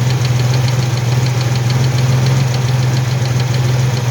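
Carbureted 3.8 V6 of a 1983 Mustang running steadily, a constant low hum with a light regular ticking several times a second.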